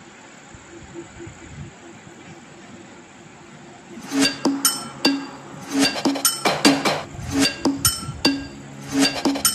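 Background music: soft for the first few seconds, then from about four seconds in a run of sharp, ringing, clinking percussive notes, a few a second.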